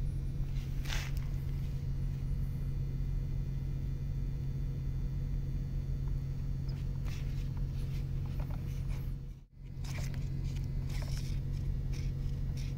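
A steady low machine hum, with a few faint clicks and scrapes as the metal engine part is handled. The hum drops out for a moment about two-thirds of the way through.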